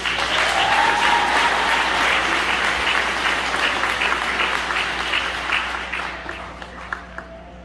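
Audience applauding, the clapping dying away near the end to a few scattered claps.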